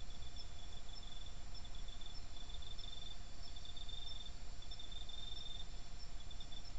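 Night insects chirping in high trills that come and go in short runs, over the steady low hiss and rumble of a trail camera's microphone.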